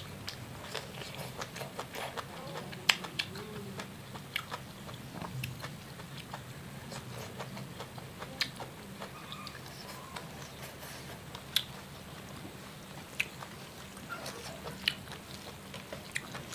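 Close-up eating sounds: someone biting and chewing food, with irregular sharp clicks and smacks over a steady low hum.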